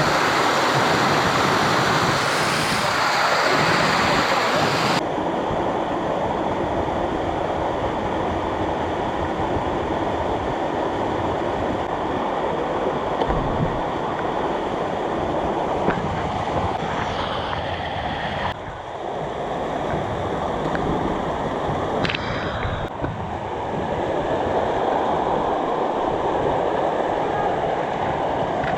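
Steady rushing water, a loud even wash of noise that changes abruptly at a few cuts between shots.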